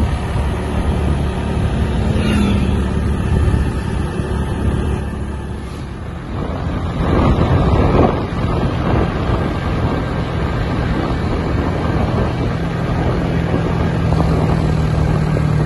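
A vehicle's engine running steadily on the move along a road, with wind rushing over the microphone.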